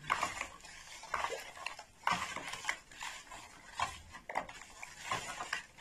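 Spoon and hand stirring salt into water in a plastic basin, with irregular scrapes, clicks and swishes of water, as brine is mixed for preserving lemons.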